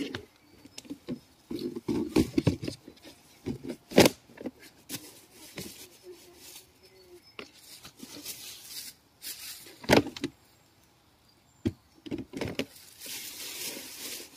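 Close handling noises of a clear plastic box or lid being set down beside a bumblebee nest on the forest floor: irregular rustles and clicks, two sharp knocks about four and ten seconds in, and a brushing hiss near the end.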